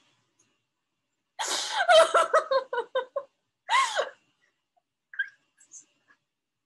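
A person's vocal outbursts reacting to hands held in ice water: a long, breaking cry, then a short yelp that rises and falls in pitch.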